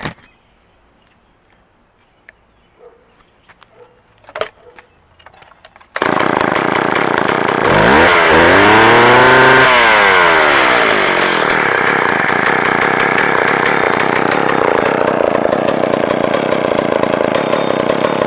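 McCulloch Mac 10-10 two-stroke chainsaw: after a few quiet seconds with some light knocks, the engine fires suddenly about six seconds in, revs up and falls back, then runs steadily at idle.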